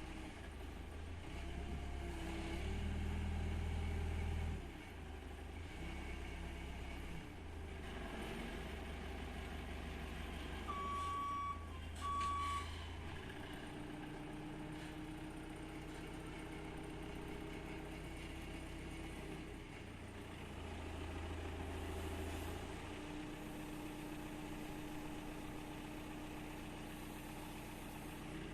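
Forklift engine running as the machine works, its level swelling and easing, with two short beeps about eleven seconds in.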